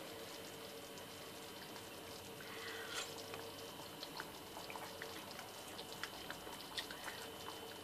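Thick red-lentil dal simmering in a steel pot: faint, scattered small pops and ticks from bubbles bursting, over a faint steady hum.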